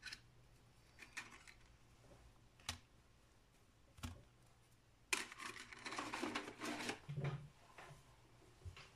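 A few light clicks, then about two seconds of rustling and crackling from bundles of plastic-insulated hookup wire being set down and shuffled on the workbench, ending in a soft thud.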